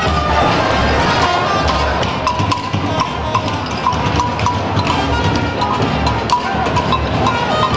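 Music with percussion: a steady beat of short, sharp clicks about twice a second over a fuller backing.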